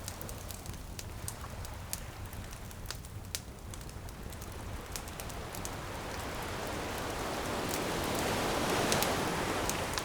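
Bonfire crackling with frequent sharp pops over the rush of ocean waves; one wave swells up from about halfway and breaks near the end.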